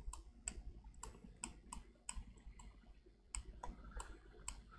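Faint, quick clicks from a computer's controls as the chart is worked, about three to four a second, with a short pause around three seconds in.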